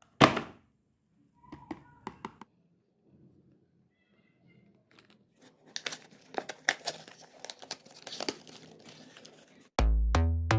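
Kinder Joy egg's plastic wrapper being torn open and crinkled: a sharp rip at the start, a few clicks, then a long stretch of crinkling and tearing. Near the end, loud music with a heavy drum-machine beat comes in.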